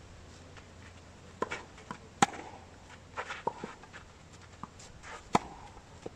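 Tennis ball struck in a rally on a clay court: sharp racket pops, the two loudest about three seconds apart, with softer knocks of the ball bouncing and shoes scuffing the clay in between.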